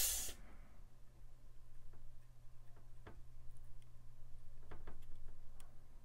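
Faint, scattered light ticks of a thin wooden pick touching the metal contacts of a laptop RAM slot as corrosion is cleaned out, over a low steady hum. A loud rushing noise dies away right at the start.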